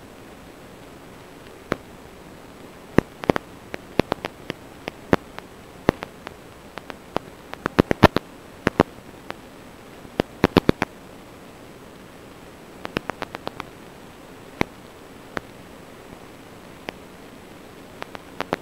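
Steady radio static hiss broken by irregular sharp clicks and crackles, in bunches, the noise of an analog FPV video receiver's recorded audio channel. No motor sound is heard.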